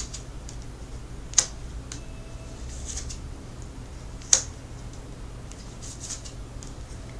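Tarot cards being handled on a table: two sharp snaps about three seconds apart, with a few light ticks and soft rustles between them.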